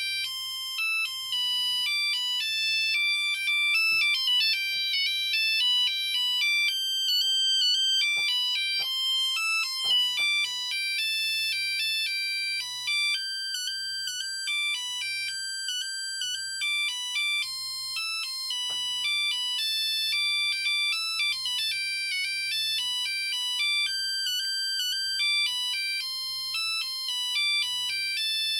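Nokia 6310i ringtone playing a synthesized melody, one beeping note at a time, stepping up and down in short notes.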